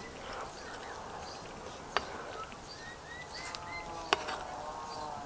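Birds calling in short, curved chirps, over and over, with a few sharp clicks about two and four seconds in.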